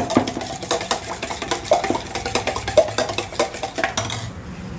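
A metal spoon beating eggs and masala in a stainless steel vessel: rapid, irregular clinks and scrapes of metal on metal.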